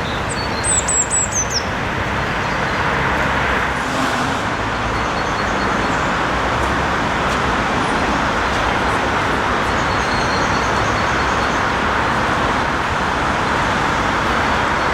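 Steady city traffic and construction-site noise, with a few short, high, falling chirps about a second in.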